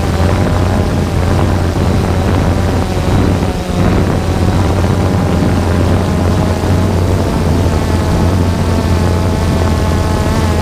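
3DR Solo quadcopter's electric motors and propellers whirring steadily in flight, picked up by the camera on board, with a strong low hum and a steady whine whose pitch wavers slightly as the motors adjust.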